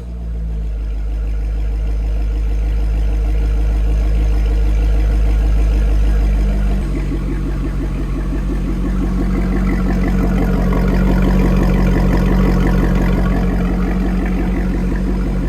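LS2 V8 of a 2007 Corvette starting up and idling through a Corsa cat-back exhaust on the stock H-pipe. It catches right at the start and runs at a fast idle, then about seven seconds in settles to a lower idle with a more distinct pulse.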